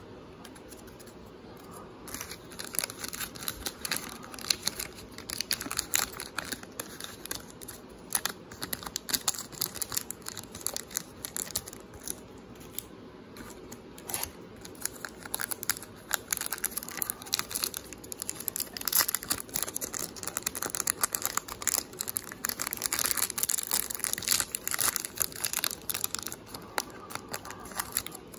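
Trading card pack wrappers crinkling and tearing as packs are handled and opened by hand, in quick irregular crackles that start about two seconds in and go on in spurts.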